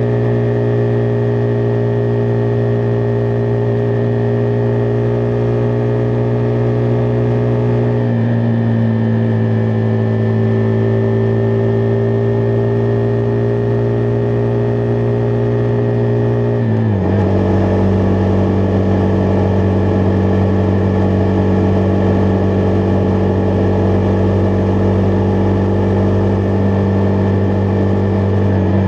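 Husqvarna Vitpilen 401's single-cylinder engine running at a steady cruise. Its pitch steps down slightly about eight seconds in and drops more clearly about seventeen seconds in, then holds steady.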